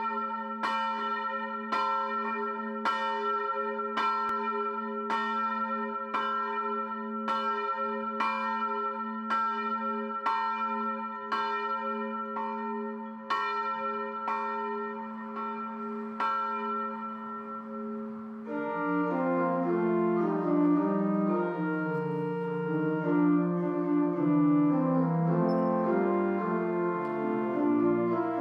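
A church bell tolling steadily, about one stroke a second, its ring hanging on between strokes. About 18 seconds in, the tolling stops and a pipe organ begins playing full, sustained chords over a moving bass line.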